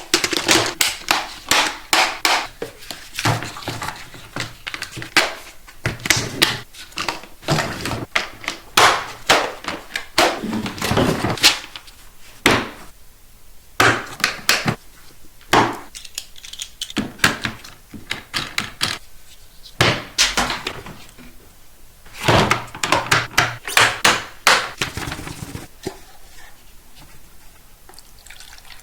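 Hard plastic Hot Wheels track-set pieces clicking and knocking, irregular sharp taps in clusters as they are handled and fitted together.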